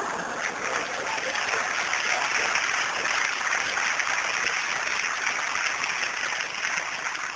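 Theatre audience applauding: a dense, steady clatter of many hands clapping that begins to ease off at the very end.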